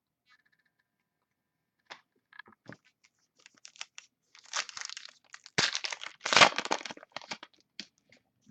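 A trading-card pack wrapper being torn open and crinkled, with a few light clicks first and then bursts of loud crackling that tail off near the end.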